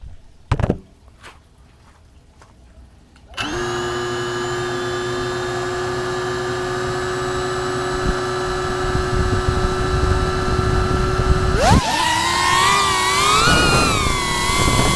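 FPV quadcopter's electric motors: a few faint clicks, then about three seconds in the motors start up to a steady idle whine. Near the end the pitch jumps sharply and wavers up and down as the throttle is worked.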